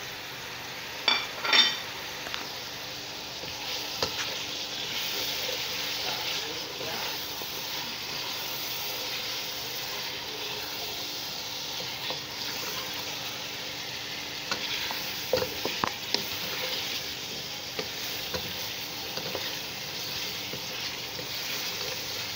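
Bone-in beef pieces frying in hot oil with garlic paste and whole spices, sizzling steadily while a wooden spoon stirs them through the pot. A few sharp clinks come about a second in and again around fifteen seconds.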